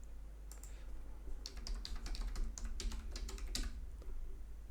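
Computer keyboard typing: a keystroke or two, then a quick run of about a dozen keystrokes from about a second and a half in, ending on a harder stroke.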